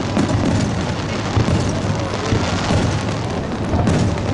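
Aerial fireworks shells bursting in a dense barrage, with deep booms and continuous crackling.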